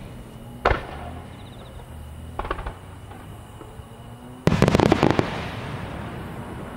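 Aerial firework shells bursting. A single sharp boom comes about a second in, a short cluster of reports follows around two and a half seconds, and a rapid volley of many booms comes near the five-second mark, with echoes dying away after.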